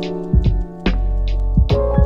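Background music: a beat of deep bass drum hits and sharp, high percussion strokes over held chords.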